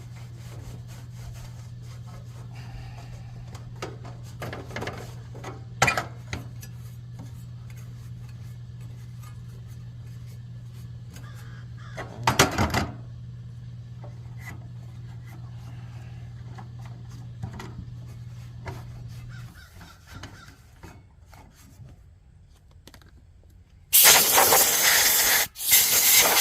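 Parts being handled, with a few knocks, over a steady low hum that stops about two-thirds of the way through. Near the end come two loud blasts of compressed air from a blow gun, blowing out a heater part being cleaned.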